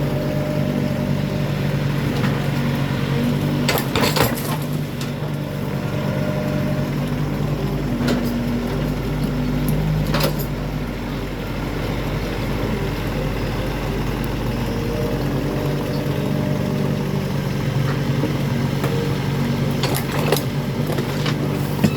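A work machine's engine, from the tractor or backhoe, running steadily. A few sharp knocks or clanks come over it, about four seconds in, around eight and ten seconds, and near the end.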